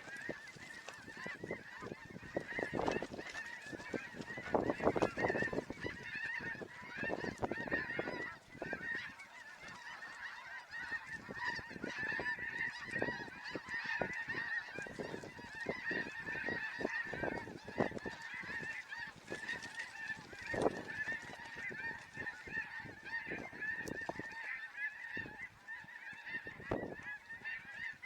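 A large flock of snow geese calling: a dense, unbroken chorus of many overlapping honks.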